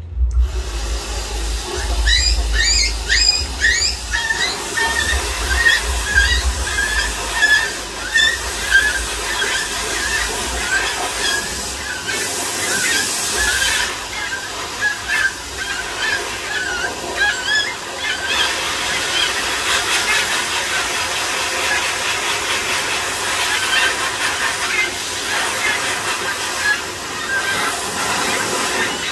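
Toy Pomeranian puppies giving many short, high squealing yips and whines over a steady hiss. The calls come thickest in the first half and grow sparser later.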